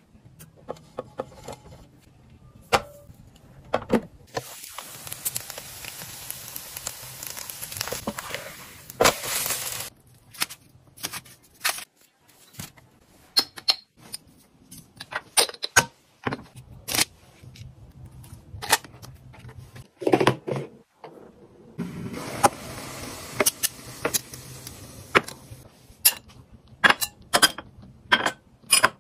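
Kitchen cookware and utensils being handled: a run of sharp clicks, taps and clatter, with two long stretches of steady hiss partway through and towards the end.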